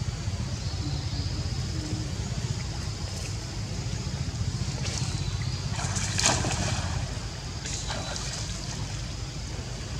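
Water sloshing and splashing as swimming macaques paddle through a pond. The biggest splash comes about six seconds in, with smaller ones around five and eight seconds, over a steady low rumble.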